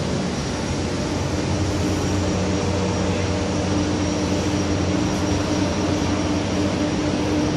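Steady mechanical drone of heavy machinery, with several constant humming tones and a faint high whine riding on the noise.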